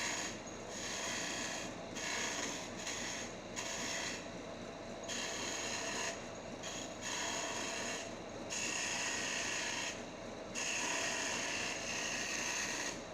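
Wood lathe running while the spinning wooden stool stretcher is worked, with a hissing scrape in repeated passes lasting about half a second to two seconds each, broken by short pauses.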